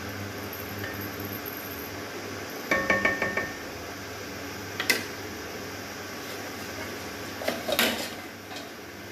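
Cooking-pan and utensil clatter: a quick run of ringing metallic clinks about three seconds in, a single sharp knock near five seconds, and a cluster of knocks near the end, over a steady background hum.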